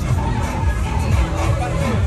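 Loud music with a heavy bass beat over the hubbub of a big crowd.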